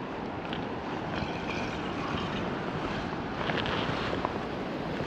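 Steady wind noise on the microphone, a low rumbling haze with no distinct events.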